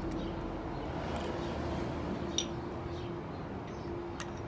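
Steady room hum with a faint steady tone underneath. A single light click about halfway through, and faint small clicks near the end, from hands working with bowls and dishes.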